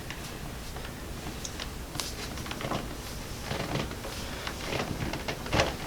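Faint rustling with scattered light clicks and knocks, a little busier in the second half.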